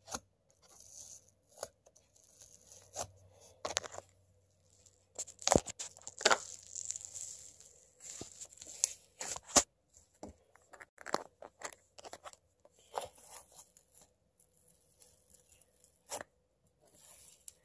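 Hands stretching and squeezing a glue slime mixed with instant snow, giving irregular sharp crackles, pops and soft tearing sounds.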